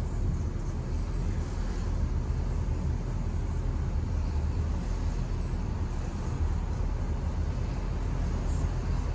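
Steady low rumble of a car driving, tyre and engine noise with no distinct events.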